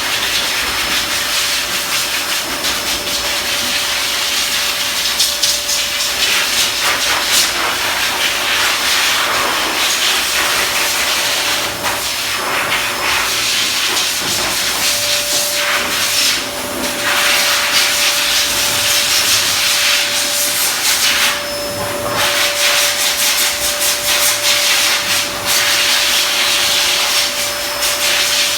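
Pet blow dryer blowing a steady rush of air, with a thin steady whine from its motor; the level dips briefly a few times.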